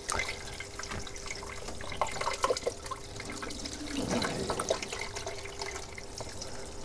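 Water trickling and dripping down through a 3D-printed hydroponic strawberry tower, with a faint steady hum underneath from the circulation pump that has just been switched on.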